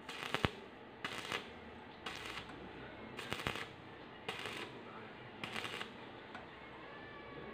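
Stick (arc) welding of thin steel box tube in short spot welds: the electrode arc crackles in short bursts about once a second, each strike laying a new spot half over the last so the thin wall does not burn through.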